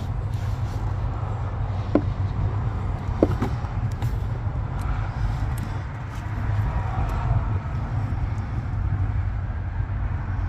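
Steady low rumble of an idling truck diesel engine inside the cab. A few sharp clicks and taps, about two seconds in and again a little later, come from plastic dash panels and tools being handled.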